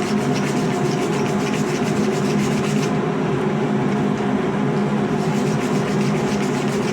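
Steady roar of a running forge, with quick repeated scratchy strokes of a wire brush scrubbing scale off the hot steel knife blade.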